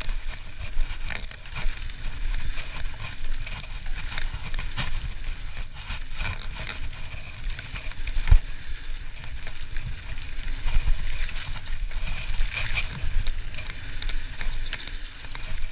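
Trek Slash full-suspension mountain bike rolling fast down a gravel trail: tyres rumbling over the gravel, with the bike clattering and knocking over bumps and wind on the microphone. One hard knock about eight seconds in.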